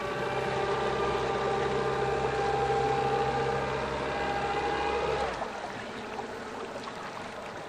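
Outboard motor running steadily in reverse, backing an aluminium bass boat off its trailer, then dropping away about five seconds in.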